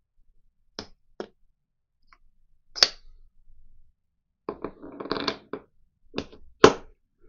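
Parts of a milling-machine spindle assembly being handled and fitted by hand: a series of sharp clicks and knocks, with a short rattling scrape about halfway through and the loudest knock near the end.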